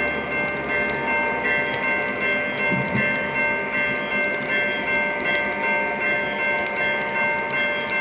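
Lionel O-scale model freight cars rolling past on the track, a running rumble with a steady ringing tone and a regular ticking that pulses about every 0.7 seconds.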